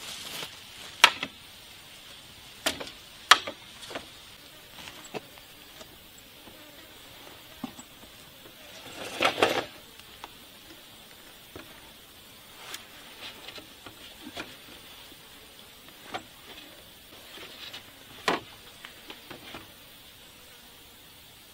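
Steady drone of forest insects with scattered sharp knocks and clatter of bamboo poles being handled and climbed on: three knocks in the first few seconds, a louder cluster about nine seconds in, and another near the end.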